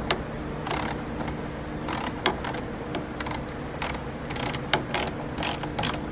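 Socket ratchet with a 10 mm socket clicking in short, uneven runs as it tightens nuts onto the mirror's mounting bolts.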